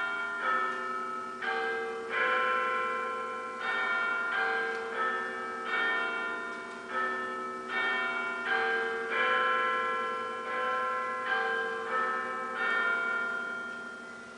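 Church bells played back by a model railway's digital sound card: several bells of different pitches struck one after another in a peal, each note ringing on under the next, over a faint steady hum.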